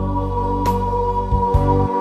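Electronic keyboard music: sustained organ-like chords over held bass notes, with a single percussive hit less than a second in.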